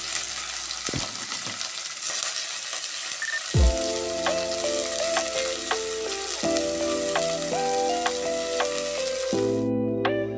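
Food frying in a pan, a steady dense sizzle that cuts off suddenly near the end, with soft instrumental background music over it.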